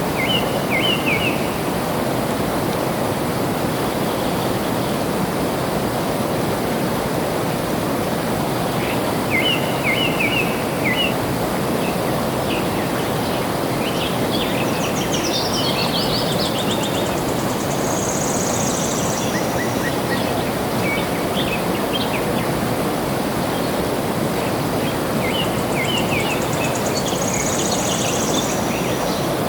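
Flowing water rushing steadily, with birds chirping over it in short bursts of song every few seconds, some high and thin.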